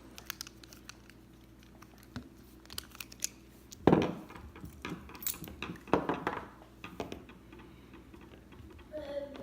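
Light metallic clicks and clacks from an American Lock 1305 padlock and its tools being handled as it is taken apart after being picked open, with a louder knock about four seconds in and a cluster of clacks a couple of seconds later.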